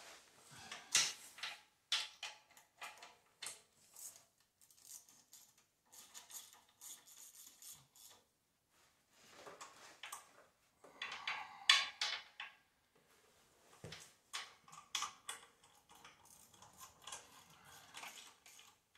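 Irregular metallic clicks, clinks and scrapes of hand tools working engine mounting bolts into a garden tractor's frame, with rustling as the worker shifts. A louder scrape and clank comes a little past the middle.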